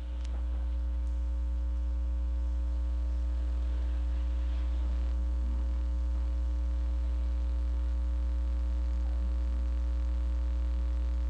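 Steady low electrical hum with a few faint, even higher tones above it, swelling slightly as it begins; no other sound stands out.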